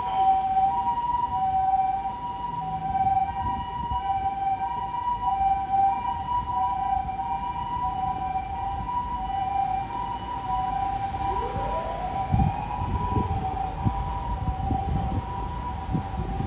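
Japanese ambulance's two-tone electronic siren, alternating between a high and a low tone, as the ambulance pulls away down the street. A lower rising tone and rumbling traffic join in during the last third.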